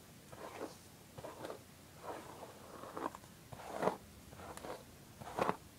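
Hairbrush strokes through straightened hair: a run of soft scratchy brushing sounds, about seven in a row, roughly one every second.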